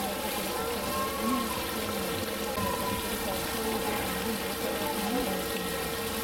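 Background chatter of zoo visitors over steadily running water, with a steady hum underneath.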